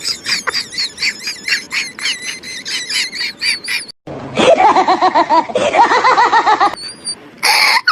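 High-pitched laughter in rapid repeated pulses, about five a second. It cuts abruptly about four seconds in to a lower, fuller run of laughs, with further hard cuts that suggest an edited-in laugh effect.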